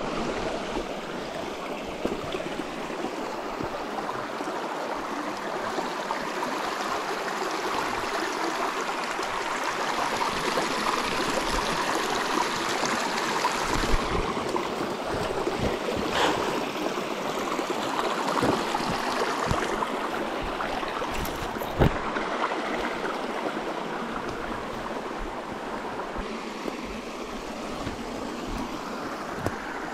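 Small rocky forest creek rushing and splashing over stones in a steady, even rush, with a few sharp knocks, the loudest about two-thirds of the way through.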